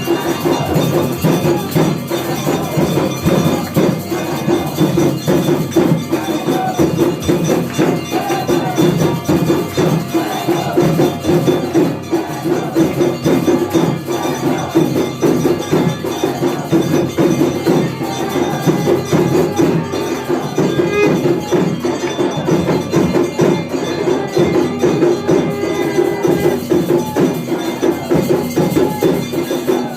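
Temple aarti bells and percussion beating in a fast, unbroken rhythm, loud and dense.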